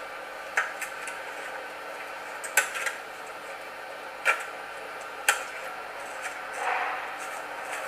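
Floorboards of an inflatable dinghy being handled and fitted into the boat: a few sharp knocks of board against board, then a longer scrape near the end, over a steady background hiss.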